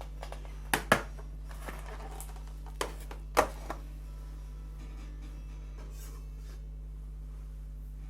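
Kitchen utensils and dishes being handled: a few sharp knocks and clacks, the loudest just after a second in and about three and a half seconds in, with a soft rustle between them, over a steady low electrical hum.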